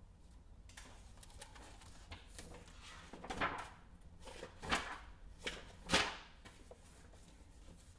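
A hardcover picture book being opened and its pages handled: paper rustling with three louder page flaps, the loudest about six seconds in.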